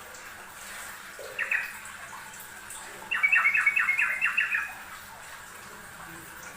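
Yellow-vented bulbul (trucukan) singing: a short double note about a second and a half in, then a quick bubbling run of about eight notes from about three to four and a half seconds in.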